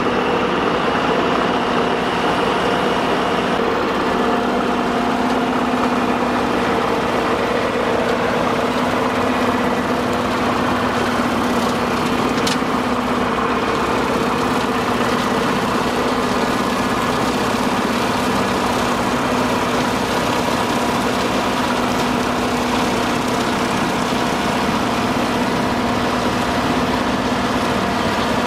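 LS MT240E compact diesel tractor running steadily at raised PTO revs, driving a rear-mounted rotary cutter (brush hog) through tall grass.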